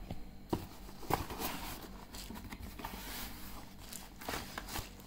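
A cardboard box being opened by hand: scattered taps and scrapes of the lid and flaps, with soft rustling of the plastic wrap around the phone inside.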